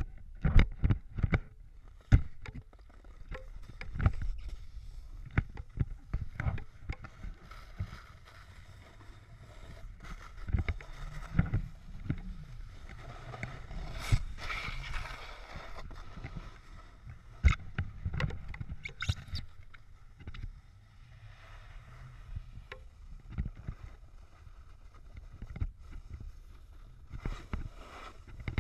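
Snowboard sliding and scraping over snow, with frequent sharp knocks and thumps, the loudest in the first few seconds.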